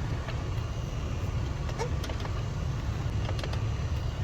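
Steady low hum inside a Toyota Camry ACV30 with a few faint light clicks, while the repaired heater blend-door servo drives the flap toward full cold.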